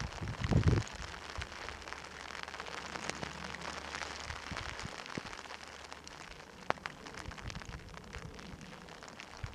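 Heavy rain falling: a steady hiss full of small drop ticks, with a few low thumps in the first second.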